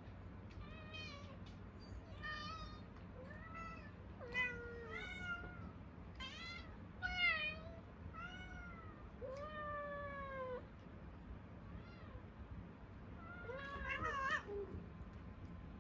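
Several Munchkin cats meowing over and over, with short separate meows that sometimes overlap: hungry cats calling for food.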